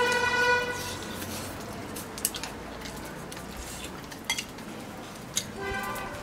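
Chopsticks clicking against bowls during a meal, a few separate sharp clicks a second or two apart. A horn's steady note ends about a second in.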